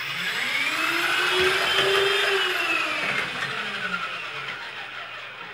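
Small battery-powered motor of a model RC boat with an oversized propeller, running at speed and churning the water. Its whine climbs in pitch over the first two seconds, then drops and fades away near the end.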